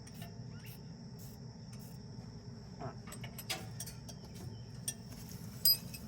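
Insects, likely crickets, trilling in a steady high drone, with scattered light clicks and taps and one brief sharp clink near the end.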